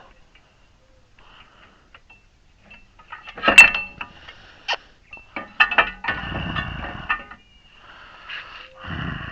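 Metal clinks and clatter of big channel-lock pliers working on a brake caliper to squeeze its piston back in. There are scattered sharp clinks, the loudest about three and a half seconds in, and a stretch of rattling a little later.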